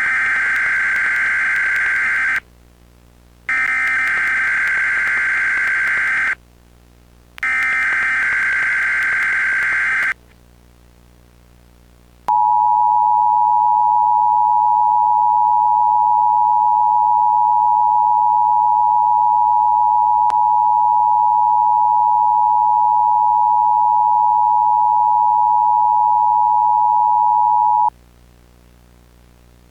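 Emergency Alert System alarm: three bursts of the shrill, warbling SAME digital header data, each about two and a half seconds long with a second's pause between them, then after a short gap the EAS two-tone attention signal, a steady dissonant two-note tone held for about fifteen seconds that cuts off suddenly near the end.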